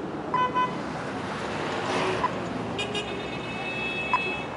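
Pedestrian crossing signal beeping over steady street traffic: a short beep about every two seconds, a quick double beep near the start, and a higher steady tone held through the last couple of seconds.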